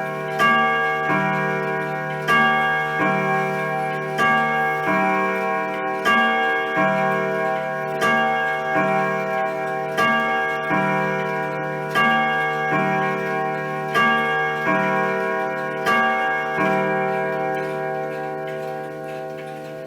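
A grandfather clock playing its chime on metal chime rods: ringing notes of changing pitch, struck about once a second and overlapping as each rings on, with a last strike near the end that slowly fades.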